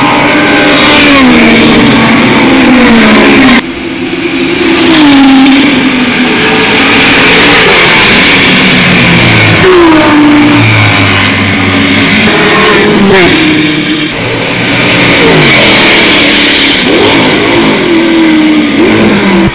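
Historic racing car engines at full throttle on the track, the engine note climbing and then dropping again and again as the cars pass and shift gear. The sound changes abruptly about a third of the way in and again about two thirds in, where one car gives way to another.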